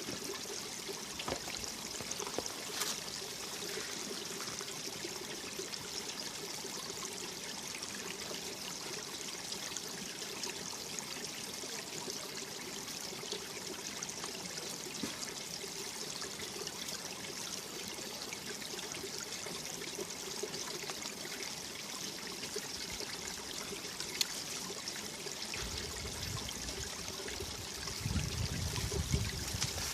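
Mountain valley stream running steadily over rocks, a continuous splashing and trickling. A low rumble joins about 25 seconds in and grows louder near the end.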